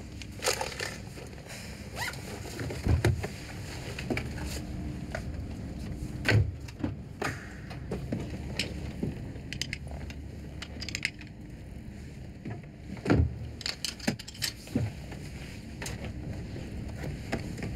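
Steady low rumble of a car's engine heard from inside the cabin, with scattered short clicks and knocks from movement in the car.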